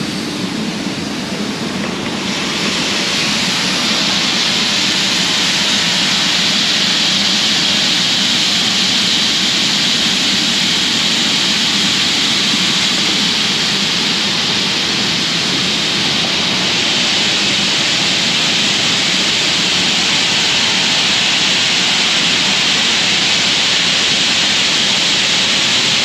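Shelled corn pouring from a hopper-bottom grain trailer's opened gate through a steel grate into an elevator's receiving pit. It is a loud, steady rushing hiss that swells about two seconds in and then holds.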